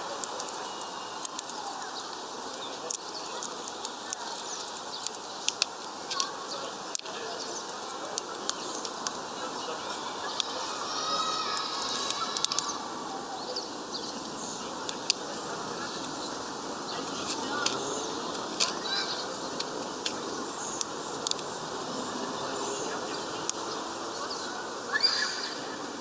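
Sharp, irregular clicks of a female common chaffinch pecking and husking sunflower seeds on a wooden feeder tray, over a steady outdoor background hum.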